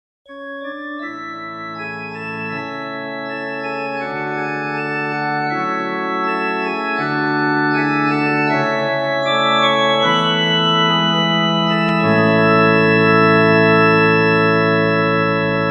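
Organ music: sustained chords starting just after a moment of silence and swelling gradually louder, an instrumental lead-in to a song.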